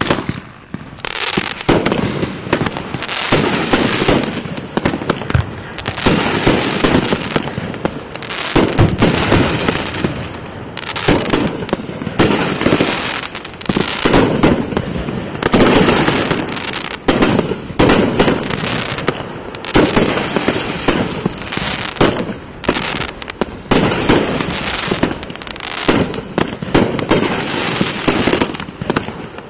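Multi-shot consumer firework cakes firing a dense, unbroken series of shots and bursting breaks.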